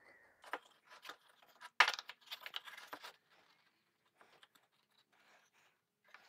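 Plywood pieces being handled and fitted together on a workbench: a scatter of small knocks, taps and scrapes, the loudest knock about two seconds in, then mostly quiet with a few faint ticks.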